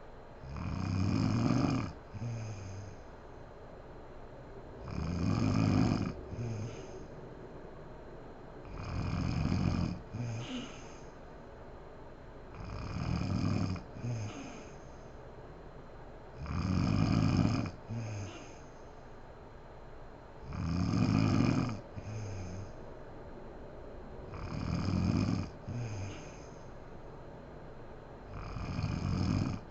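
A sleeping woman snoring in a steady rhythm, eight snores about four seconds apart. Each long snore is followed straight away by a shorter, quieter one.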